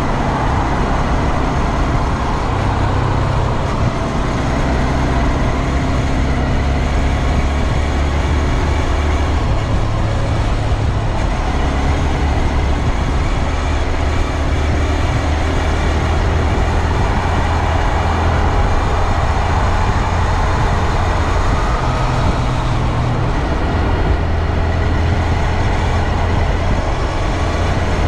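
2022 Honda Grom's 125cc single-cylinder engine and drivetrain running steadily, the pitch stepping and swelling up and down. The owner hears in it the same unexplained noise that the dealer's new o-ring drive chain has not cured.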